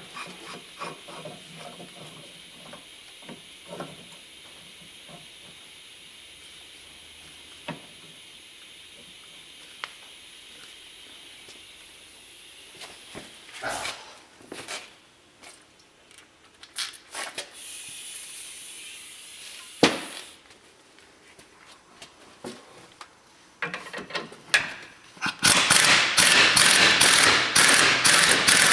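Impact wrench hammering in rapid bursts near the end, driving the screw of a ball joint press to push a U-joint cup out of a Dana 44 axle yoke. Before it, a steady hiss with scattered tool clinks and a couple of sharp metal knocks.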